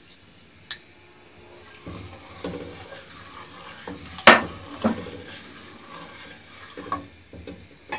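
A ladle stirring sugar into milk in a metal cooking pot, with a few light knocks of the ladle against the pot. The sharpest knock comes about halfway through.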